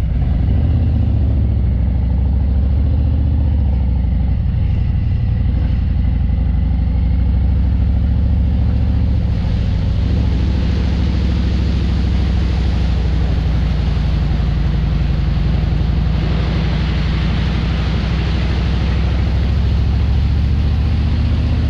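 Harley-Davidson Ultra Limited's V-twin engine running steadily at cruising speed, with wind rush that grows louder about halfway through.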